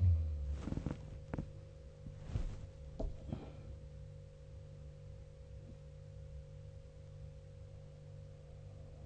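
A sleeping person's snore ends right at the start, followed by a few short snorts and breathy clicks over the next three seconds. Then a pause in the snoring, with only a steady low hum in the room.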